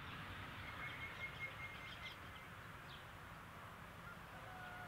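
Birds chirping and calling over faint, steady outdoor background noise, with a pulsed high call in the first two seconds and a faint steady tone starting near the end.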